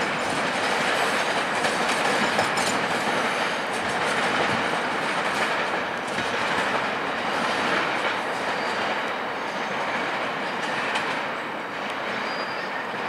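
Stainless-steel passenger cars of a departing train rolling over rail-yard switches, steel wheels clattering and slowly fading as the rear car draws away, with a faint high wheel squeal near the end.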